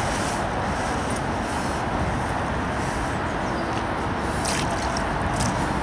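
Steady rumble of road traffic, with a few faint ticks in the second half.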